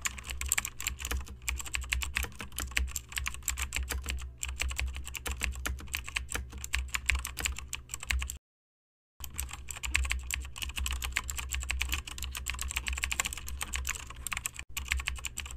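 Typing on a computer keyboard: a fast, continuous patter of key clicks, broken once by a brief dead silence a little past halfway.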